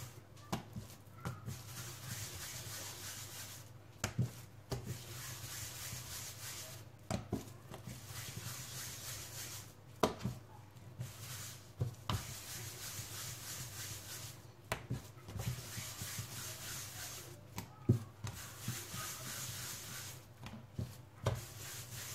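Hands rolling pieces of soft potato yeast dough into balls on a countertop: a steady rubbing, with a short soft knock every few seconds.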